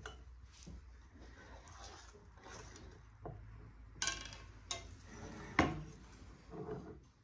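Canning gear being handled: glass jars, pot and metal utensils clinking and knocking in a few separate sharp knocks, the loudest about five and a half seconds in, over a low steady hum.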